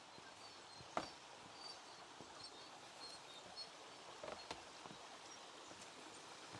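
Faint outdoor ambience: a creek running in a steady hiss, with small birds chirping in short high notes here and there. A single sharp tap about a second in.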